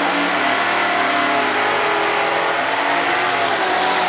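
A Super Stock drag car's V8 engine held at high revs during a burnout, with the rear tyres spinning on the pavement. It runs loud and steady, wavering slightly in pitch.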